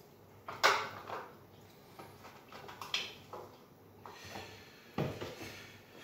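Short knocks of things being set down and handled on a kitchen countertop: a juice carton and a plastic blender cup. The loudest knock comes about half a second in, with smaller ones around one, three and five seconds in.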